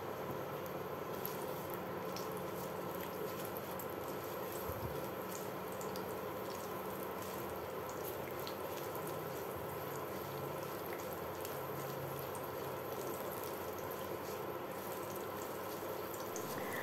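Garlic cloves frying in a little oil in a nonstick wok: quiet, steady sizzling with scattered small pops that pick up about a second in, now and then stirred with a silicone spatula.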